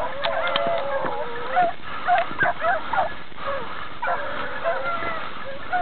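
A pack of beagles baying on a hare's trail: several hounds giving tongue at once, with short overlapping yelps and a few longer drawn-out howls.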